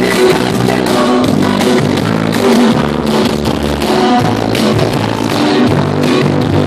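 Loud dance music played over a sonidero sound system, with a steady beat and bass line.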